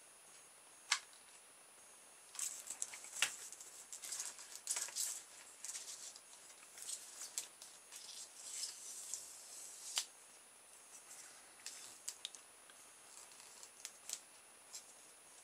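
Hands working a hot glue gun along a styrofoam plate strip: scattered sharp clicks and bursts of scratchy rustling, busiest in the first half, then a few lighter clicks near the end.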